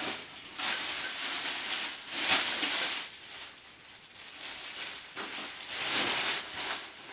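Rustling and crinkling of packaging being handled, in several bursts, the loudest about two and six seconds in.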